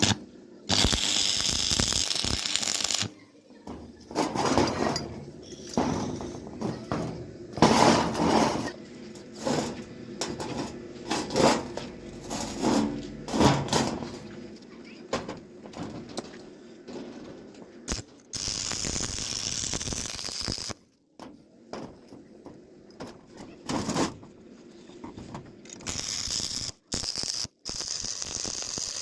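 Steel being worked by hand and power tool: three stretches of steady harsh hissing noise lasting two to three seconds each, with irregular clanks and knocks of metal parts in between.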